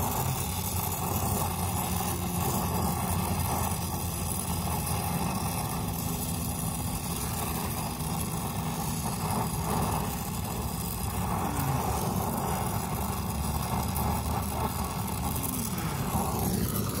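Brazing torch flame hissing steadily against a copper joint, heating it to unsweat a liquid line filter drier.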